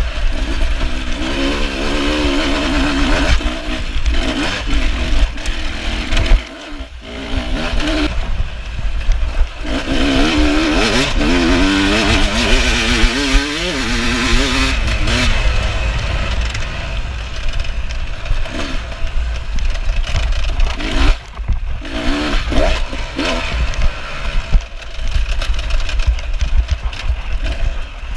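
Beta 300 RR two-stroke enduro motorcycle engine under way off-road, its pitch rising and falling again and again as the throttle is worked, heard from the handlebar-mounted camera. It eases off briefly about six seconds in, then pulls hard again.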